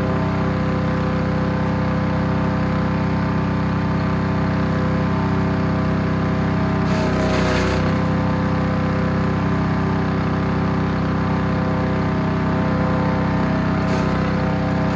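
The small engine of a 3-inch wood chipper running steadily, with short bursts of higher rushing noise about seven seconds in and again near the end.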